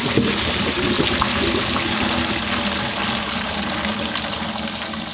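Pasta cooking water pouring from a pot through its strainer lid into a stainless steel sink, a steady splashing rush that eases slightly toward the end.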